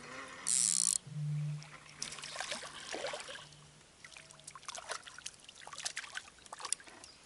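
A small rudd splashing at the lake surface as it is reeled in on a float rod: a run of quick, sharp splashes, most of them in the second half. A brief loud hiss about half a second in.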